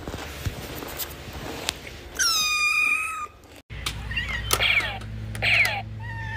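A kitten's single high meow, about a second long, a couple of seconds in. After a sudden cut, a steady low hum with short high chirping sounds over it.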